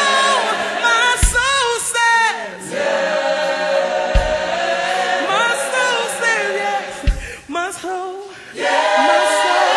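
Gospel choir singing a slow worship song together, several voices in harmony. A deep low thump falls about every three seconds under the singing.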